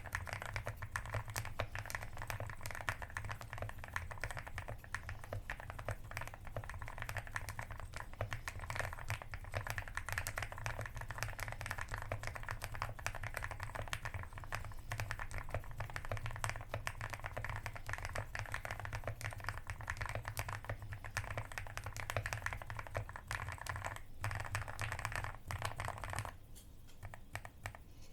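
Fast, continuous typing on a custom Xinmeng A66 aluminium mechanical keyboard with a polycarbonate plate, lubed Gateron Milky Yellow linear switches and XDA-profile keycaps. The keystrokes thin out and grow quieter about two seconds before the end.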